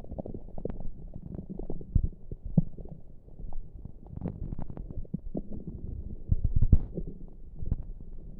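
Human stomach gurgling and rumbling, picked up close: an irregular run of short low gurgles and pops, loudest about two seconds in and again around six to seven seconds. The noises come on their own, with no pressing on the belly.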